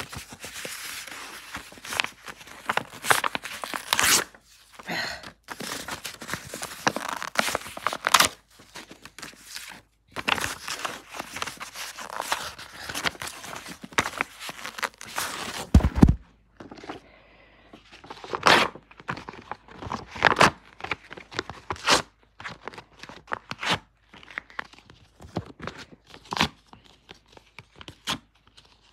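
Printed paper VHS cover insert being torn apart and crumpled by hand. There are long stretches of ripping through the first half, a dull thump about sixteen seconds in, then a run of short, sharp tears.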